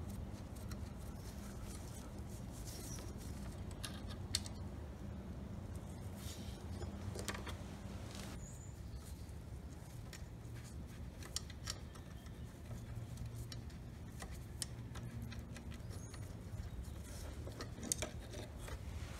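Faint scattered clicks and light metallic rattles of a small dirt bike's carburetor and its fittings being worked loose by hand, over a steady low hum.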